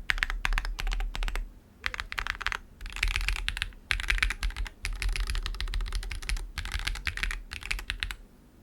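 Typing on a Mobula80 gasket-mount mechanical keyboard with a polycarbonate plate, lubed Durock POM linear switches and Milkyway ICHIGO keycaps. Fast runs of keystrokes come in bursts with short pauses, and the typing stops just before the end.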